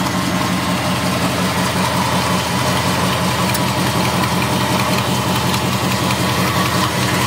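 Ford FE 390 V8 in a 1965 Ford F100 idling steadily with an even pulse, freshly started, while its ignition timing is checked with a timing light.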